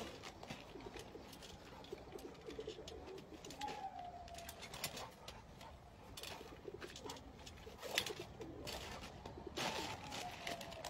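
Faint irregular creaks and taps from a small garden trampoline as a dog bounces on its mat. A drawn-out falling call comes about four seconds in and again near the end.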